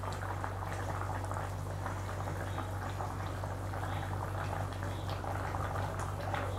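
Thick masala gravy with brinjal and drumstick pieces bubbling at a boil in a kadai, a steady crackle of popping bubbles over a low, even hum.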